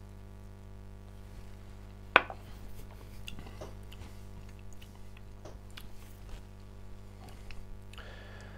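A man tasting whisky: small wet mouth and lip sounds as he holds it in his mouth. One sharp knock about two seconds in, a glass set down on a wooden board, is the loudest sound. A steady low electrical hum runs underneath.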